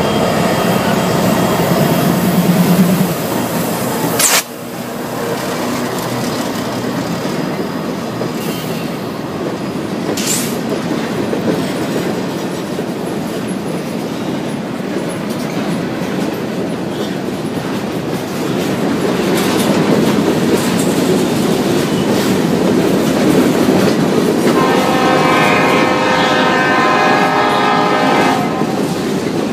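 Freight train passing close by: Union Pacific diesel locomotives running past, then covered hopper cars rolling by with wheels clattering over rail joints. A sharp knock comes about four seconds in, and a steady ringing of several tones sounds in the last few seconds.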